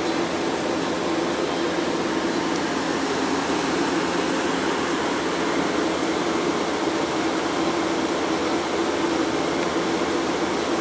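Metro-North Shoreliner train standing at the platform, giving off a steady machinery hum with a constant low tone.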